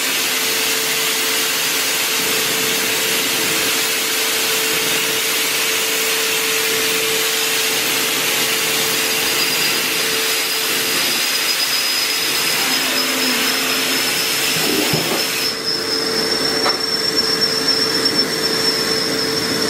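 Okuma Millac 800VH 5-axis CNC machining center running as its head and pallet move: a steady hiss over a humming tone. A high whine comes in about halfway and rises slightly, and the hiss cuts off suddenly near the end while the hum carries on.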